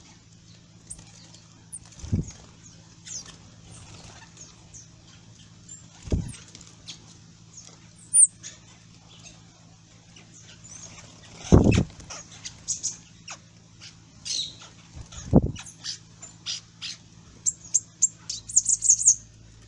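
Small birds chirping, with many short high chirps scattered throughout and a quick flurry of them near the end. Four dull low thumps cut in along the way.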